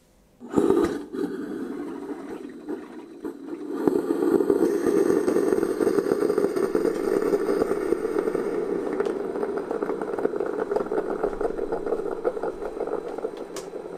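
Ninja CP307 Hot and Cold Brewed System coffee maker starting its brew cycle: a very loud, steady rushing noise. It begins about half a second in and grows louder about four seconds in.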